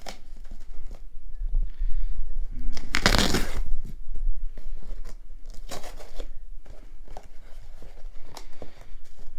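Packing tape being ripped off a cardboard parcel and the box flap torn open, with one loud tearing rip about three seconds in. Shorter rustles and crackles of cardboard and bubble wrap follow.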